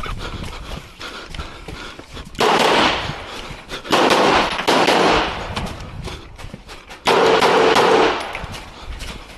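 Rifle fire during a practical rifle stage: strings of shots that come through as loud blasts about a second long, starting suddenly about two and a half, four and seven seconds in, with sharper single cracks between them.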